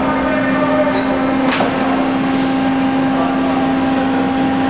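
Pines AD 35 CNC tube bender running through its cycle: its hydraulic pump and drive motor give a steady hum. A sharp click comes about one and a half seconds in, and a second, higher steady tone joins after it.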